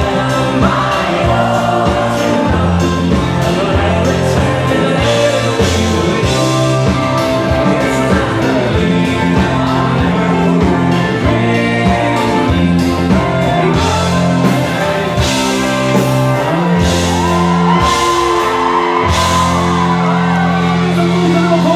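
Live band playing with a male lead singer and a piano accordion, over a steady beat. The singing line is clearest near the end.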